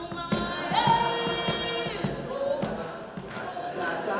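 Singing voices with music, holding long notes and sliding between pitches, with a few short thumps among them.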